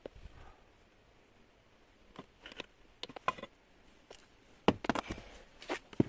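Tools and metal parts being handled: scattered sharp clicks and knocks, a few ringing briefly like metal, the loudest in a quick cluster a little under five seconds in.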